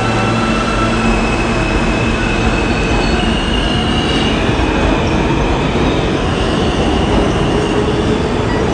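New York City subway train running on the rails with a steady, loud rumble and a high wheel squeal about two to five seconds in.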